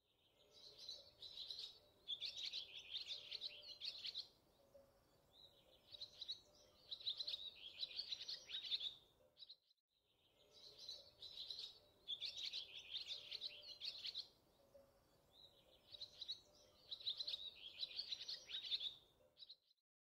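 Birds chirping in bursts of rapid, high calls. The same stretch of about ten seconds is heard twice in a row.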